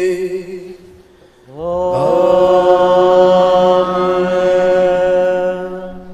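A man's voice singing liturgical chant: a held note trails off, then after a short pause a new note slides up and is held for about four seconds before fading.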